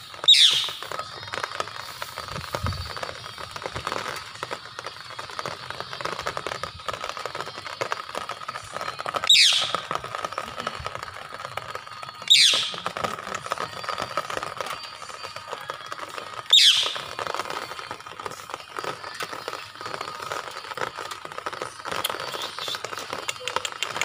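Parakeet giving four sharp screeches, each falling quickly in pitch, spaced several seconds apart, over a steady crackling background.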